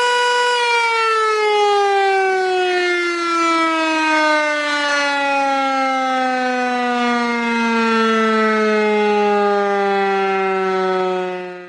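Loud siren holding one steady pitch, then sliding slowly and smoothly down in pitch for about ten seconds and fading out quickly at the end.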